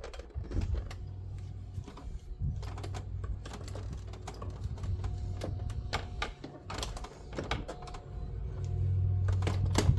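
Plastic trim tray of a pickup's jump seat clicking and creaking in a quick, irregular patter as it is pried and wiggled, stuck fast in its seat. A steady low hum runs underneath and grows louder near the end.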